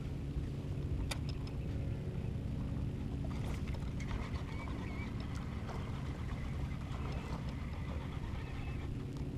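Steady low hum aboard a bass boat, with a few faint sharp clicks as the angler works and casts his rod and reel.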